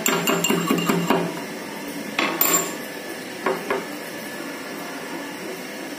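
Small green cardamom pods being pounded in a small steel mortar with a steel pestle: a quick run of metallic clinks and knocks in the first second, then a few more strikes about two and three and a half seconds in, quieter after.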